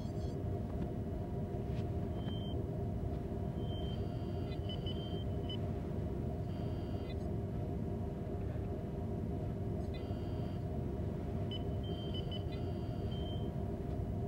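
Sci-fi starship ambience: a steady low engine-like hum, with short electronic beeps and chirps every few seconds, some in quick runs of two or three.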